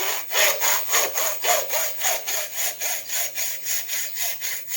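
Hand saw cutting through the plastic end of a Honda CRF300L throttle tube, in quick, even back-and-forth strokes of about four a second that start abruptly.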